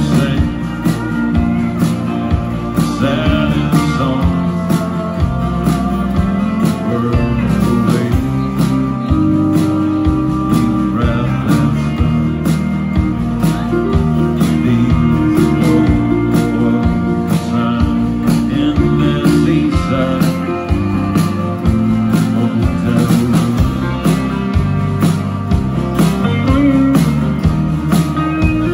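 Live country band playing, with guitars, a pedal steel guitar and drums over a steady beat.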